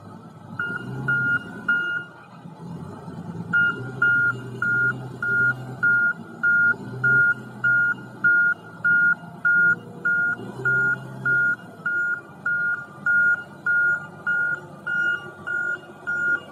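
Wheel loader's warning beeper sounding a little under twice a second, three beeps and then a short pause before it beeps on steadily, over the loader's diesel engine, whose sound swells and falls as it moves with a log in its grapple.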